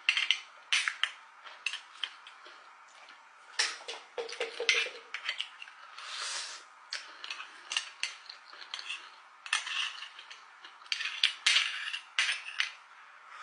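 Metal spoon clinking and scraping against oyster shells in a run of sharp clicks, with wet eating sounds, slurping and chewing, about halfway through.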